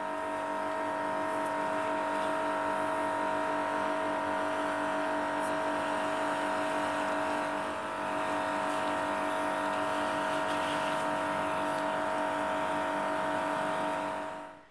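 Electric pressure washer running steadily, a constant motor whine over the hiss of the water jet spraying a bicycle frame, with a brief dip in level about halfway through.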